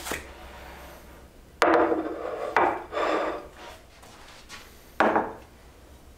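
Plates and bowls being set down one after another on a wooden table: a sharp knock about a second and a half in, two more around three seconds, and another at about five seconds, each dying away quickly.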